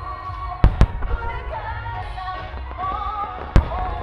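Aerial firework shells bursting: two sharp booms close together under a second in and a third about three and a half seconds in, each with a low rumble after. Music with a melody plays through, accompanying the display.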